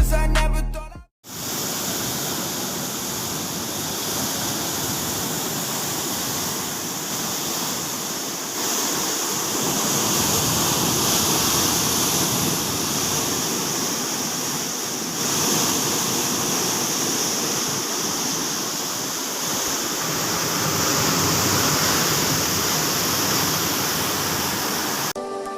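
Loud, steady roar of machinery in a ship's steering gear room, with no distinct tones, stepping up in level about 8 and 15 seconds in.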